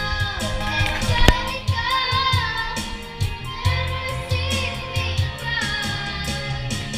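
A young girl singing into a microphone over a karaoke backing track with a steady beat, her voice amplified through the karaoke machine's speaker. A single sharp click cuts in about a second in.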